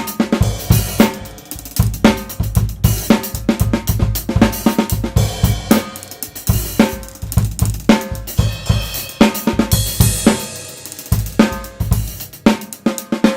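Tama Swingstar drum kit with Remo heads and Meinl cymbals played as a steady groove of kick, snare and hi-hat, with a cymbal crash ringing out about ten seconds in. It is heard through a Blue Yeti microphone.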